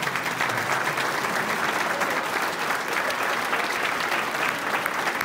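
A crowd applauding: dense, steady clapping of many hands.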